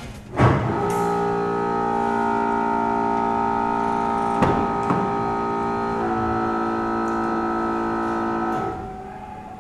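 Background music: a sharp hit, then a long sustained low string chord that changes about six seconds in and fades out near the end. Two light clicks sound about halfway through.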